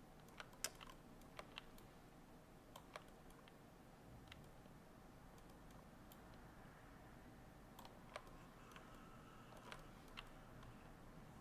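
Near silence broken by sparse, faint clicks of a computer mouse and keyboard at irregular intervals, over a faint steady background hum.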